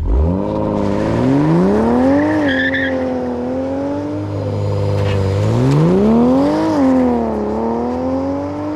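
Toyota GR Supra engine being revved twice: the pitch climbs from very low, eases and holds, then climbs again and falls back.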